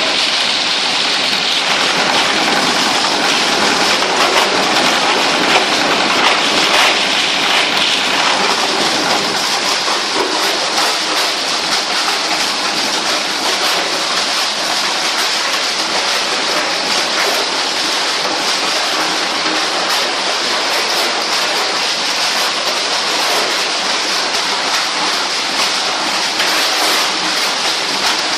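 Plastic shredder running and chopping plastic waste: a loud, steady, dense clatter and crackle of plastic pieces being cut and tumbled.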